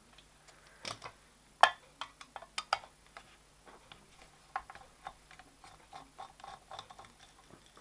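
Irregular small clicks and ticks of a screwdriver turning a small screw out of a circuit board, the metal tip clicking in the screw head. The loudest click comes about one and a half seconds in.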